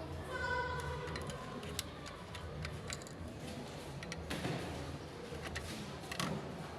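Irregular small clicks and ticks of a screwdriver turning a screw to fasten a washing machine's inverter board, over a low steady hum.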